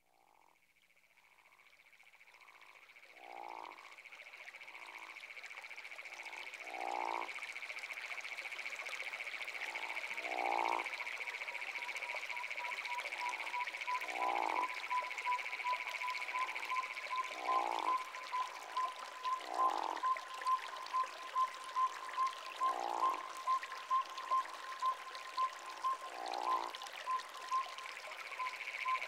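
Frog chorus fading in: frogs croaking every few seconds, each call falling in pitch, over a steady high trill, with a regular repeated high note joining about ten seconds in.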